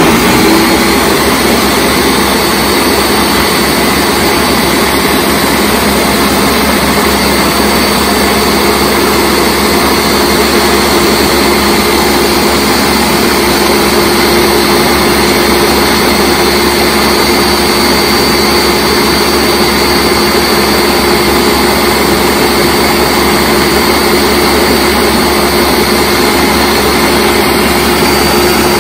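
Ninja Professional countertop blender running on its high setting, blending salsa: a loud, steady motor whine.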